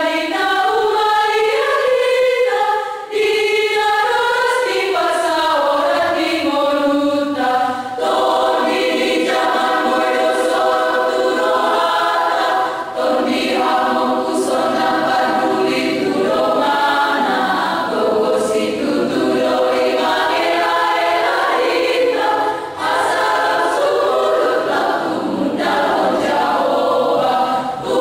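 Women's choir singing a cappella, several voices holding long sung notes, with a few brief breaks between phrases.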